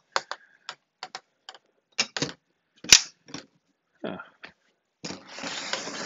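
Sharp metallic clicks and knocks from an aluminium airline galley insulated box as its door is swung shut and latched, with the loudest clack about three seconds in. About five seconds in, a rough scraping starts as the box is turned over on its cardboard carton.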